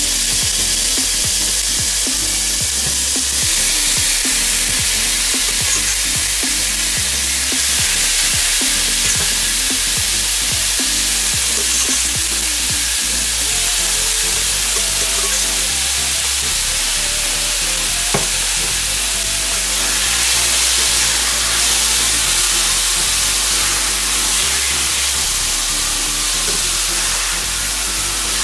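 Marinated steak strips with onion and green pepper sizzling loudly in hot olive oil in a stainless steel pot: a dense, steady frying hiss, with a single click about eighteen seconds in.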